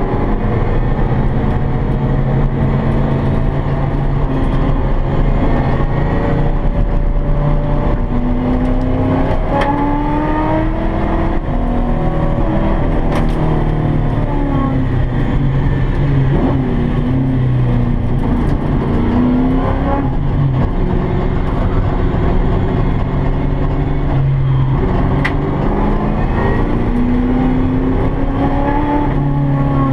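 Ford Fairmont's small-block V8 under hard driving, heard from inside the cabin: the engine pitch climbs as it accelerates, then drops as the driver lifts for corners, several times over.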